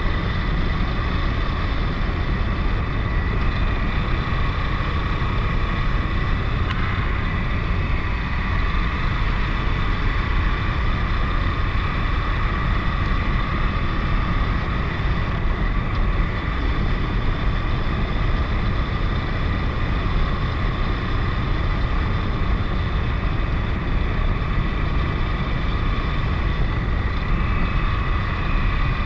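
KTM 1090 Adventure motorcycle ridden at a steady speed: its V-twin engine holds an even note over a dense, constant rush of wind and road noise.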